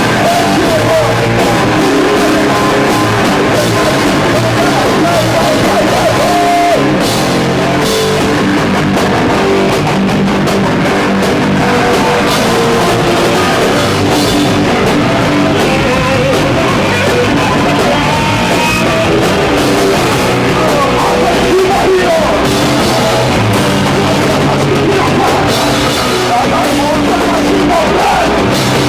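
Hardcore punk band playing live at full volume: distorted guitars and a pounding drum kit, with vocals at times.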